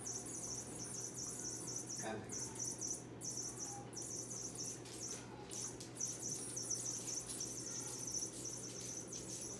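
Steady background insect chirping: a high, evenly pulsing trill like crickets, running without a break.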